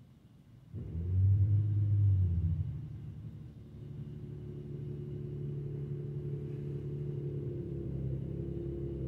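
Vehicle engine running with a low rumble that starts suddenly about a second in, loudest for the first second or two, then settles into a steady low hum that cuts off abruptly.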